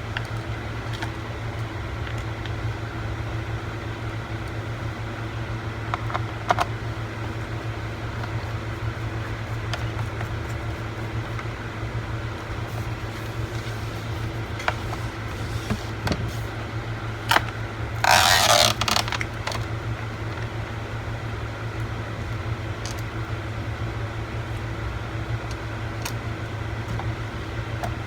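Small clicks and taps of screws and a screwdriver being worked into a laptop's case, over a steady low hum. A brief louder rustling noise comes about eighteen seconds in.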